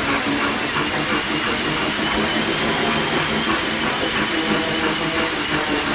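Slat mill running steadily, its slatted belt rumbling and clattering under a dog's running feet.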